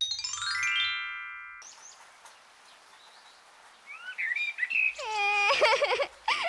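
A descending run of bell-like chime tones opens and fades away, followed by a few bird chirps about four seconds in. Near the end a woman's voice breaks into loud, drawn-out wailing, like exaggerated crying.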